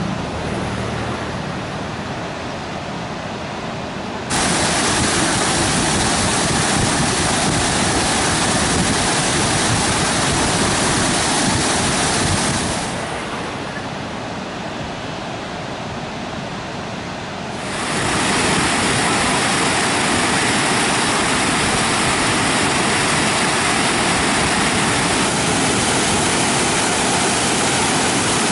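Floodwater rushing through a dam's open spillway gates: a continuous loud roar of water with no pitch to it. The roar turns suddenly fuller and brighter about four seconds in, duller at about thirteen seconds, and brighter again from about eighteen seconds.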